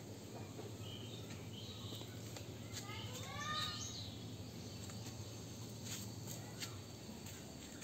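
A kitten's high-pitched mew, one rising call about three seconds in, over faint outdoor background noise. A few short clicks near the end.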